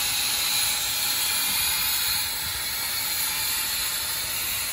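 Narrow-gauge steam locomotive giving off a steady hiss of steam, with steam jetting from its open cylinder cocks as it starts to pull away.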